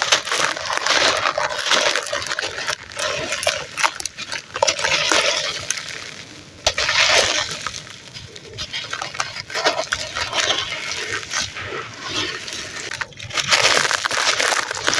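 Crunchy red sand crumbling into foamy water and being worked by hand: dense gritty crackling with wet squishing and many small clicks, swelling and fading in irregular waves.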